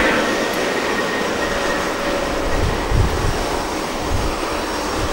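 Boeing 737-800's CFM56-7B jet engines running at high thrust during the takeoff roll: a steady, loud roar. A high whine fades out about half a second in, and low rumbles come and go beneath the roar.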